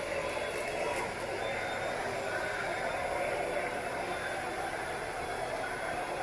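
Kenmore Powermate compact canister vacuum cleaner running steadily: an even rush of air with a faint high whine from the motor.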